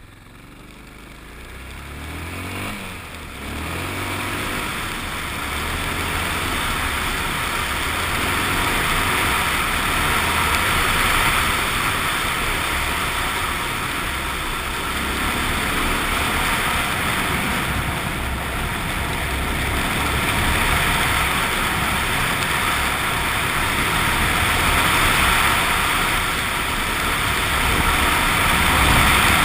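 Suzuki XF650 Freewind's single-cylinder engine getting louder and rising in pitch through the first few seconds as the motorcycle gets under way, then running steadily at riding speed under a broad rush of wind and road noise.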